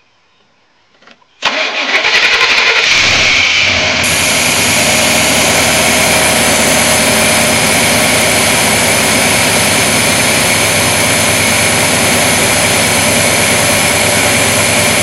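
The 5.7 L (350) small-block V8 of a 1990 Chevrolet C1500 Silverado starts about a second and a half in, runs rough for a moment, then settles into a steady idle. It now starts and runs after a tune-up with a new distributor cap, rotor and plug wires, which cured its no-start in wet weather.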